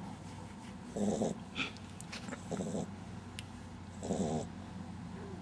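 French Bulldog puppy snoring in its sleep: three rough snores about a second and a half apart.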